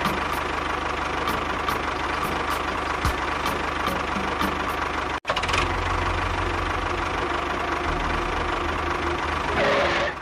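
An engine running steadily, with a regular knocking tick. It breaks off for an instant about five seconds in.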